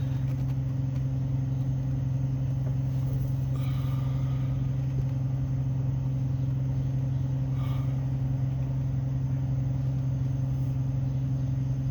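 A steady low mechanical drone with an even, unchanging level. Two faint short higher sounds come about 4 and 8 seconds in.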